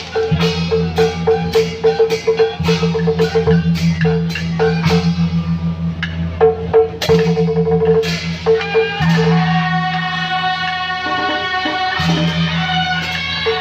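Loud music with a fast percussion beat over a steady bass line. About nine seconds in, long held melody notes come in.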